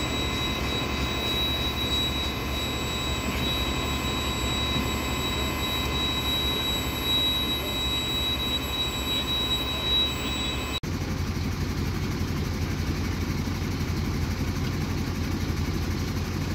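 Steady machine noise with a constant high whine. About eleven seconds in it cuts to the lower, steady drone of a fire engine's engine running with hoses coupled to it.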